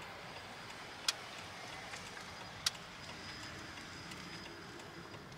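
Steady road and engine noise of a car driving slowly, heard from inside the cabin, with two sharp clicks about a second and a half apart.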